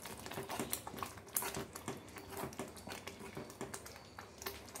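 Thick tamarind-and-chilli chutney simmering in oil in a steel kadai, its bubbles popping in irregular soft ticks and plops as it cooks down until the water is gone, with a steel spoon now and then stirring and scraping the pan.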